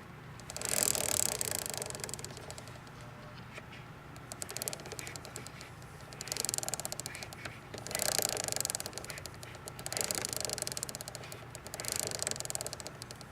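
A chain making an abnormal noise: bursts of rapid clicking and rattling that come back about every two seconds, over a faint steady hum.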